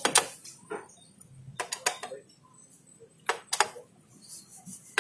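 Sharp metallic clicks and taps, about eight in small clusters with quiet gaps between, from hand work on metal parts.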